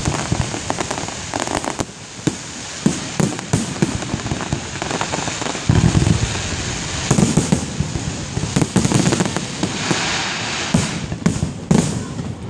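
Fireworks display: aerial shells bursting in a rapid run of sharp bangs and crackling, with heavier booms about six and seven seconds in and a spell of dense crackling near the end.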